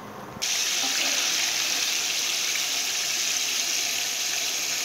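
Flour-breaded chicken wings deep-frying in a pot of hot oil: a steady sizzle that jumps suddenly louder about half a second in.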